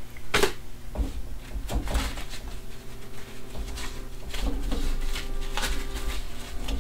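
Husk being peeled and torn off an ear of corn that has been cooked in its husk in the microwave: irregular rustling and crackling tears, the loudest about half a second in, over a low steady hum.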